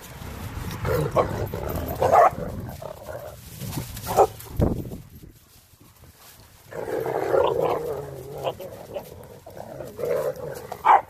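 Dogs growling and barking as they wrestle: a Blue Bay Shepherd and Renascence Bulldogge puppies play-fighting, the rough growls being play, not aggression. Growly stretches come in bouts with a short lull in the middle and a few sharp barks.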